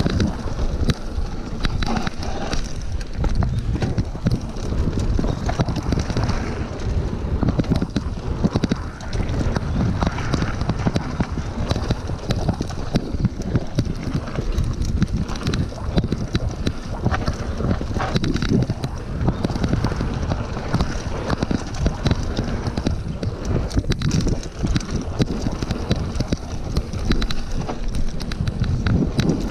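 Mountain bike riding fast down a dirt trail: tyres rolling over the dirt and the bike clattering over bumps in a constant stream of small knocks, with wind buffeting the microphone.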